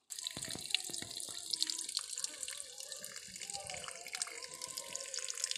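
A thin stream of water from a mini battery-powered pump's outlet pipe pouring and splashing steadily into a muddy puddle below, with many small irregular splashes.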